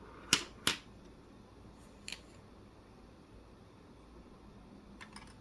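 Colored pencils clicking as they are picked up and set down: two sharp clicks about a third of a second apart near the start, a softer one about two seconds in, and a few faint ticks near the end.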